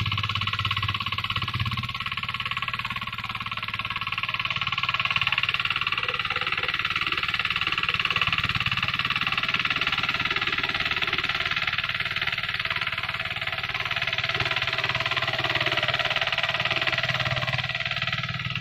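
A two-wheel hand tractor's single-cylinder diesel engine runs steadily while pulling a plough through a rice field. It gives a constant low drone with a steady high whine over it.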